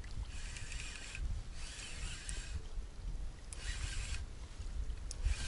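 Shimano Stradic spinning reel cranked in spurts of about a second with short pauses, winding in line on a hooked small pike. Wind rumbles on the microphone underneath.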